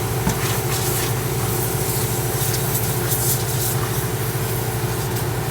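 An engine running steadily at idle, with a hiss of rushing air rising and falling over it.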